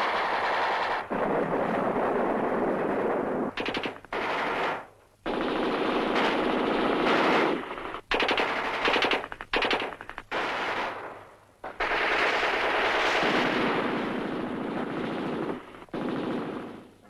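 Automatic gunfire: several long bursts of rapid shots with brief breaks between them, the longest near the end.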